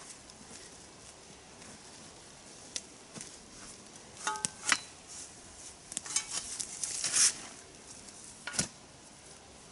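A spade working soil and footsteps through dry fallen leaves: scattered knocks and crackling rustles, busiest between about four and seven seconds in.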